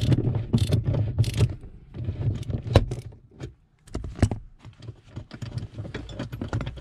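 Ratchet wrench with a 17 mm socket working a car seat-rail bolt loose: irregular ratcheting clicks and metal-on-metal knocks, with a low rumble in the first second and a half.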